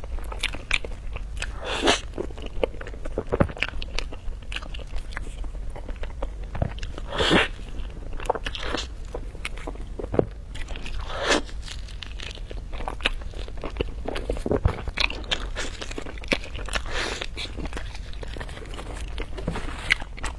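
A person biting into and chewing crunchy dessert close to the microphone: many small crisp crunches, with a few louder bites spaced several seconds apart.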